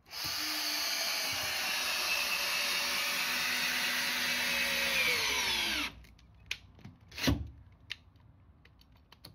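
Makita cordless drill driving a bolt down through a rubber isolation pad into a timber bottom plate. The motor runs steadily for about six seconds, slows with a falling pitch as the bolt tightens, then stops suddenly. A few light knocks and a thump follow.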